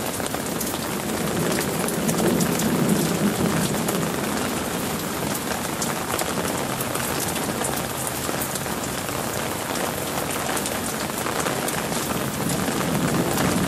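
Heavy rain mixed with hail pelting down: a dense steady hiss full of sharp ticks from individual impacts, swelling louder about two seconds in and again near the end.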